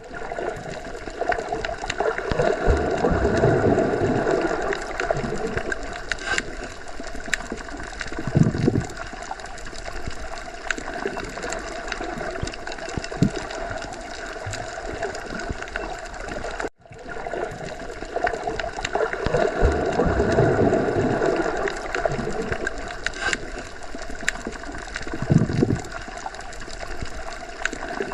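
Underwater ocean ambience: a continuous muffled wash of gurgling, bubbling water with slow swells and an occasional deeper surge. It cuts out for an instant about seventeen seconds in and the same stretch of sound starts over, a repeating loop.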